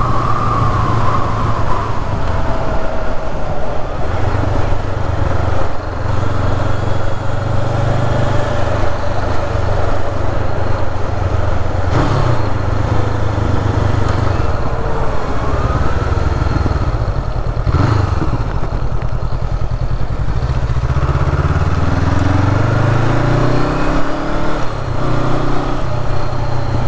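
Honda CB500F's parallel-twin engine running under way, heard from the rider's position with wind noise. Past about 21 s in, the engine note rises again and again as it accelerates up through the gears.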